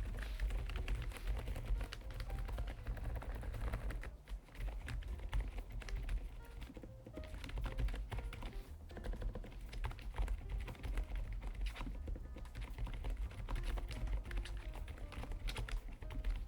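Typing on a Lofree Flow Lite low-profile mechanical keyboard with full-POM switches: a fast, uneven run of key clicks that keeps going with only brief pauses.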